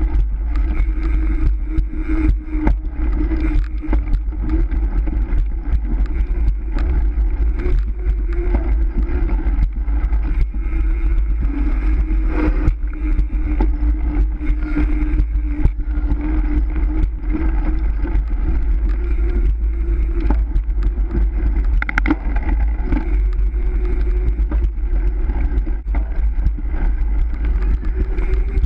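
Wind rush and rolling noise from a racing bicycle ridden fast, picked up by a camera mounted on the bike: a steady hum over a heavy low rumble, with many small rattles and clicks.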